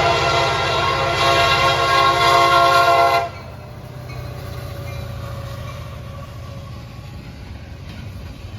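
Locomotive air horn blowing one long, steady chord that cuts off about three seconds in. A low, steady rumble carries on after it.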